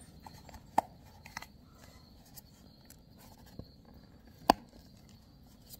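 Diagonal cutters snipping through the melted plastic stakes on the back of a steering wheel airbag cover: sharp snaps a little under a second in and, loudest, about four and a half seconds in, with a few fainter clicks between.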